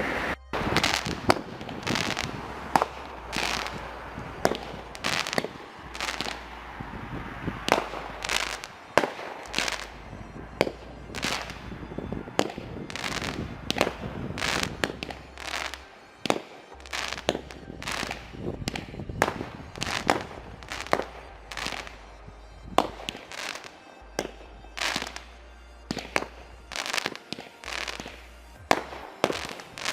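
Many fireworks going off, a rapid irregular run of sharp bangs and cracks, about one or two a second, continuing throughout.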